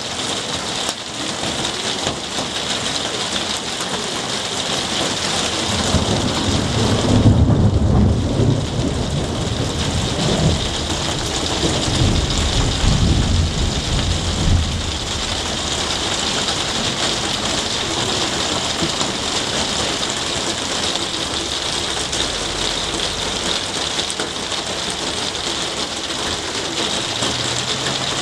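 Heavy rain falling steadily on leaves, pots and paving. A deep rumble of thunder rolls in about six seconds in and fades out by about fifteen seconds.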